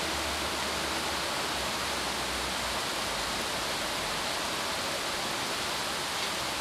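Steady, even hiss with no other sound in it, and a low hum underneath that fades out about three seconds in.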